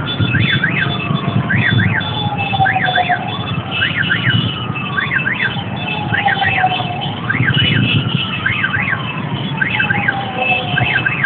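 Sirens sounding. One wails in a slow cycle, jumping up and falling away about every three and a half seconds. A quicker double chirp repeats about once a second over steady low street noise.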